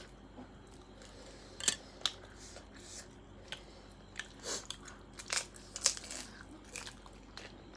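Close-up eating sounds: a person biting and chewing crunchy snack food, with irregular sharp crunches and crackles.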